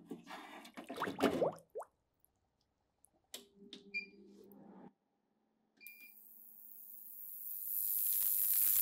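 The loaded wire basket of rusty airgun parts clatters into a stainless ultrasonic cleaner's tank in the first two seconds. Two short beeps follow from its controls, and the cleaner starts up with a low steady hum and a hiss of cavitating liquid that builds over the last few seconds.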